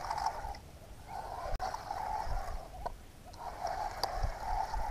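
Spinning reel being cranked in stretches with short pauses, its gears whirring as a hooked fish is reeled in on a bent rod.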